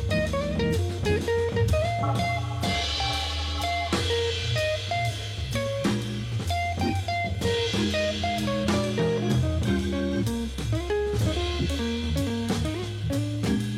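Background music: a guitar tune over a steady drum-kit beat.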